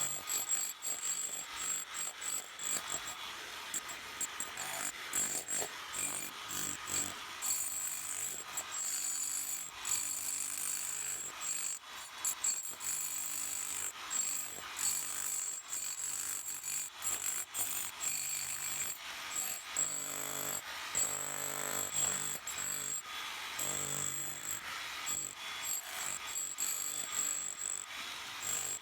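Milwaukee M18 Fuel cordless SDS-MAX rotary hammer running with a scaling chisel, chipping concrete and blacktop.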